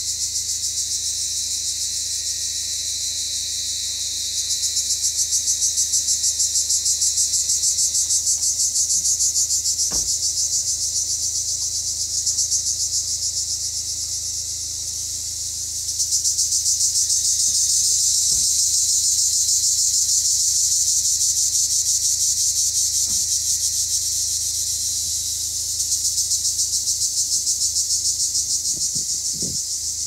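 Black cicadas singing: a loud, steady, high-pitched buzz with a fast pulsing texture that swells louder a few times. A few faint clicks.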